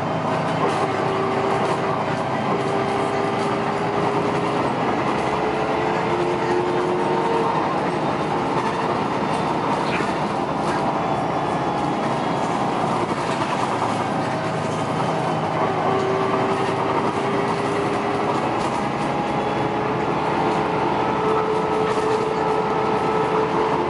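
Articulated city bus heard from inside while under way: steady engine and road noise, with a drivetrain whine that rises slowly in pitch, once early and again in the last third.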